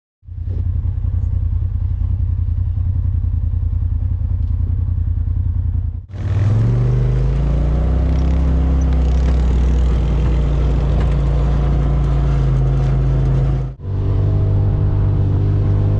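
Polaris RZR side-by-side engine running, in three abruptly cut clips. The first runs steadily. About six seconds in, the second rises in pitch and then holds at a steady higher speed. The third, from near fourteen seconds, runs steadily at a similar speed.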